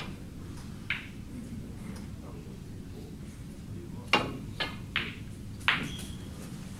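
Snooker shot: a sharp click of the cue tip striking the cue ball about four seconds in, followed within about a second and a half by three more hard clacks as the ball strikes cushions and another ball. A single lighter click about a second in.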